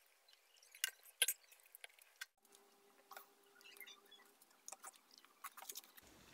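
A person eating close to the microphone: faint chewing and small wet mouth clicks, with two sharper clicks about a second in.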